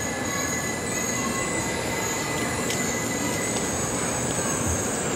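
Shinkansen Class 923 'Doctor Yellow' inspection train rolling slowly along a station platform: a steady rumble with a high, steady squeal over it and a few faint clicks in the middle.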